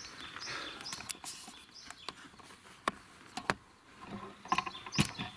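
Handling noise: a scatter of about six sharp clicks with soft rustling in between, the loudest click near the end.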